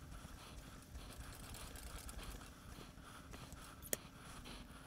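Cleaning rod pushing a polish-coated bore mop back and forth inside an airgun barrel: faint, evenly repeated rubbing strokes, with one sharp click just before the four-second mark.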